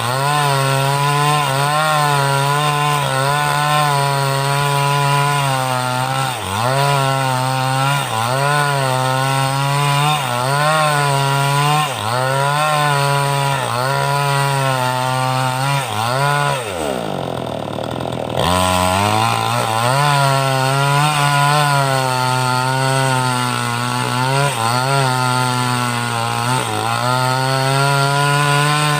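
Type 5800 two-stroke chainsaw with a 22-inch bar ripping lengthwise through a teak log under full throttle, its engine speed sagging and recovering again and again as the chain loads up in the cut. About seventeen seconds in, the engine bogs down sharply in a falling drone for over a second, then picks back up and carries on cutting.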